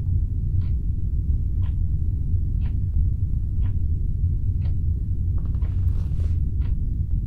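A loud, steady low rumbling drone under a clock ticking once a second. About five to six seconds in, a brief hissing rustle rises over the ticks.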